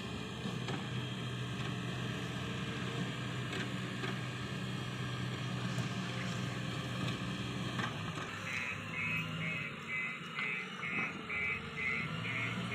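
Diesel engine of a JCB 3DX backhoe loader running steadily. About two-thirds of the way in, a high beep starts repeating about twice a second.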